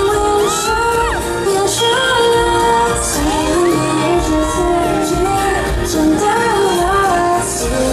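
A live Mandarin pop song: a woman's voice singing a gliding melody over a backing track with a steady beat.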